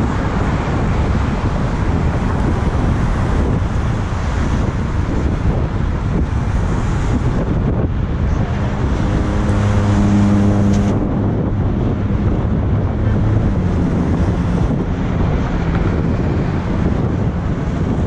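Wind rushing over a helmet-mounted action camera's microphone while riding a bicycle, over a steady rumble of traffic. About eight and a half seconds in, a steady low-pitched tone with overtones sounds for about two and a half seconds, with fainter steady tones later.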